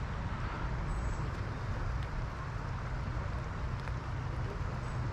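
Steady background rumble of road traffic passing nearby, with no distinct single event.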